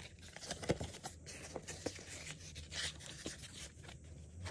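Packaging and cards handled by hand during an unboxing: irregular soft rustling and scraping, with a few light ticks.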